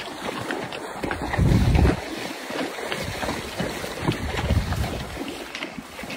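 Wind buffeting the phone's microphone, strongest in a gust about a second and a half in, over a horse's hooves splashing through a shallow river.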